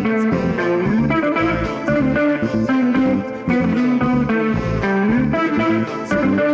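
Live funk band playing, with a twangy electric guitar line over bass and a steady beat.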